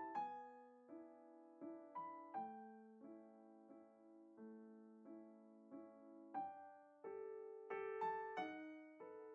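Quiet background piano music: slow single notes and chords, each struck and left to ring and fade, with fuller chords near the end.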